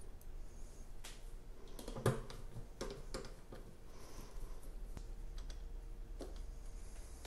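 Scattered light clicks and knocks of a hand screwdriver and small screws on the metal lid of a battery case as the lid is screwed back down, with one louder knock about two seconds in.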